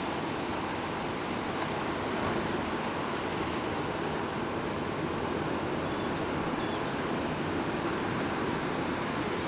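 Breaking ocean surf: a steady wash of noise from waves crashing.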